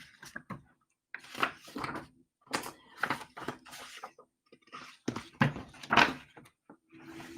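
A string of irregular short rustles and light knocks, each lasting a fraction of a second with short gaps between: the handling of a toy canary as it is brought out and shown.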